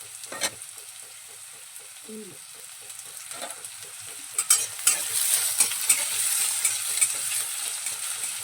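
Diced potatoes sizzling as they fry in hot mustard oil in a kadai, stirred with a spatula that scrapes and clicks against the pan. The sizzle gets louder about halfway through, with the sharpest clicks around then.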